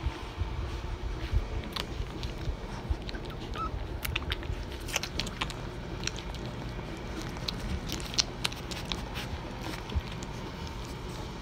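A litter of Rottweiler puppies nursing from their mother, many small wet sucking and smacking clicks coming irregularly.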